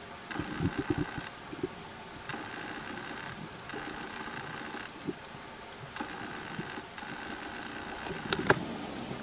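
Underwater sound picked up in a camera housing: a mechanical hum that comes and goes in spells of about a second, with scattered low crackles and clicks and one sharp click near the end.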